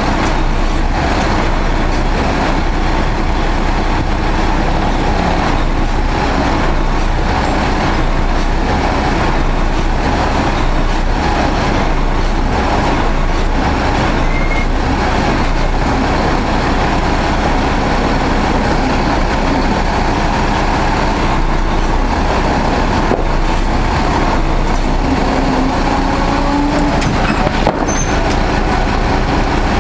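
Heavy diesel truck engine running steadily.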